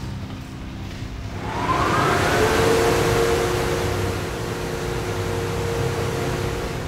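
Cartoon car-wash drying-lamp sound effect. A rushing whoosh swells up about a second and a half in, with a short rising whistle, then holds with a steady hum over a low drone.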